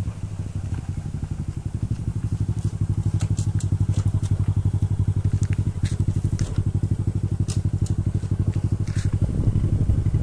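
Semi-automatic underbone motorcycle's small engine running with a fast, even putter. It grows louder over the first two seconds as the bike comes up close, then holds steady.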